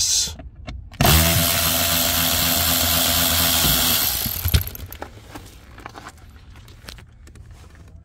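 Milwaukee M12 cordless electric ratchet running for about three seconds, starting about a second in, as it backs out a T25 Torx screw from the plastic under-dash trim panel. It stops with a sharp click, followed by faint handling clatter of the panel and tool.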